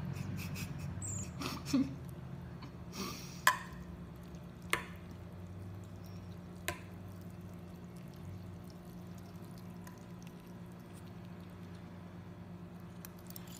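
Quiet eating sounds as noodles are slurped and chewed: a handful of sharp, wet clicks and smacks, spaced a second or two apart in the first half, over a low steady hum. One brief high chirp comes about a second in.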